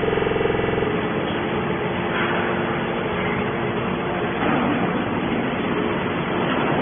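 Steady machinery noise, opening with a buzzing hum that stops about a second in.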